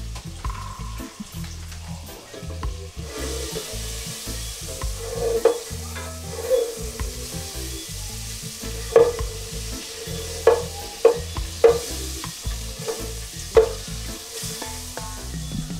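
Butter melting and sizzling in a pot on the stove, the hiss building from about three seconds in. A spatula stirs it, knocking and scraping against the pot several times.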